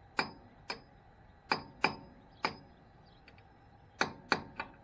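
Metal tool tapping on the locking-washer tabs of an M35a2 axle nut: eight sharp metal-on-metal strikes at uneven intervals, each ringing briefly.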